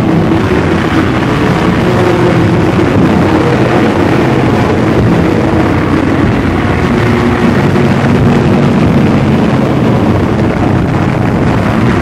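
Loud, dense droning noise over a few low held tones, unchanging and without a beat: a dark ambient or drone music track.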